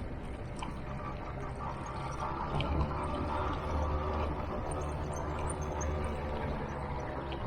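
Motor scooter engine running steadily while riding, with wind and road noise on the microphone; it grows a little louder about two and a half seconds in.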